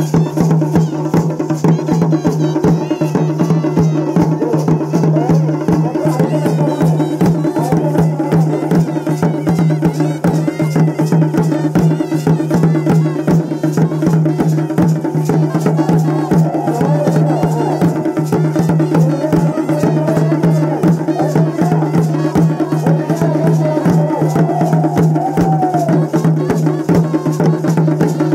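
Several dhol barrel drums played together by a drum troupe in a fast, unbroken rhythm of stick strokes.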